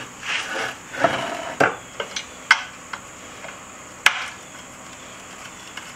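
A steel T-handle socket wrench clinking and scraping as it is fitted onto the bolts of steel armor scales and turned to loosen them a full turn each. A scraping rattle comes in the first second or so, then a few sharp metal-on-metal clicks, the loudest about four seconds in.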